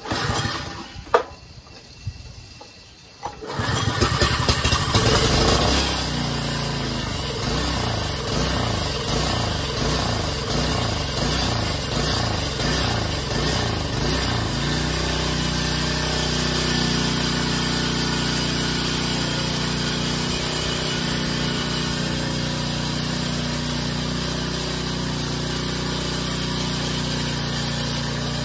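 The Troy-Bilt Pro Line tiller's 6.75 hp engine is started on choke and catches about three and a half seconds in. It runs unevenly at first, its pitch rising and falling for about ten seconds, then settles into a steady run.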